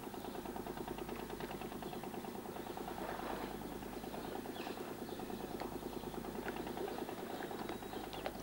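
A small motor boat's engine running steadily with a fast, even chugging.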